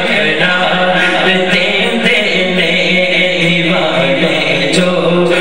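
A man singing a Punjabi naat unaccompanied into a microphone, drawing out long melodic notes.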